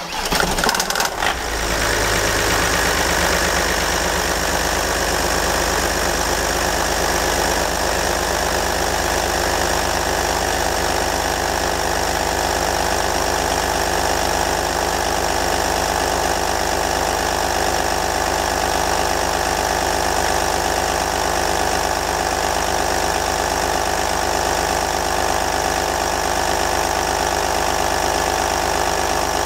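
Audi 2.5 TDI V6 diesel engine (AFB) starting and catching within the first second or two, then idling steadily, with its belt drive and pulleys exposed.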